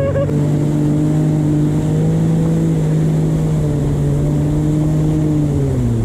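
Jet ski engine running at steady high revs at speed, over the rush of water spray. The engine note eases off slightly near the end.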